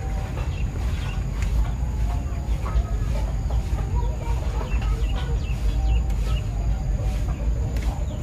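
Chickens clucking on and off over a steady low rumble.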